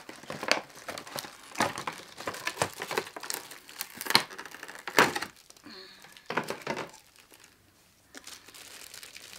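Plastic packaging crinkling and rustling as a boxed figure is unwrapped, in irregular bursts of sharp crackles that die down near the end.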